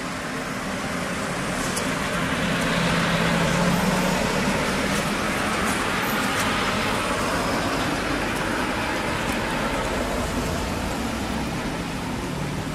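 A motor vehicle going by: a steady low engine hum and rushing road noise that swell to their loudest a few seconds in, then slowly ease off.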